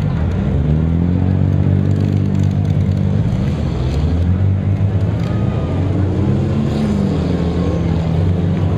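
Several demolition derby cars' six-cylinder engines running together, revving up and down repeatedly as the cars manoeuvre.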